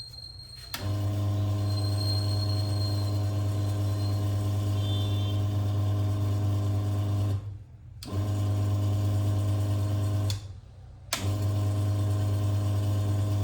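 Silca Speed key cutting machine's electric motor switched on for a test run on a newly fitted drive belt, running with a steady hum for about six and a half seconds, then stopped and restarted twice for shorter runs. The owner suspects the replacement belt is the wrong size.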